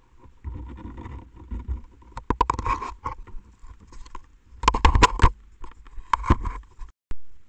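A small wild animal handling and nudging a trail camera up against the microphone: close scratching and rustling with sharp knocks on the housing, in four bursts and a last single click near the end.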